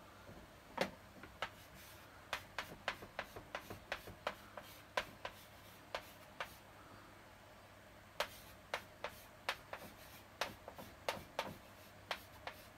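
Chalk writing on a blackboard: a quick series of sharp taps and short scratches as each stroke is drawn. The taps come in two runs, one per word, with a pause of about two seconds between them.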